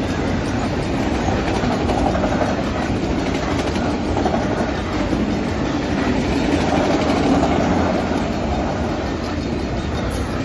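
A freight train of autorack cars rolling steadily past at a grade crossing: a continuous rumble of steel wheels on the rails, with clickety-clack as the wheels cross rail joints.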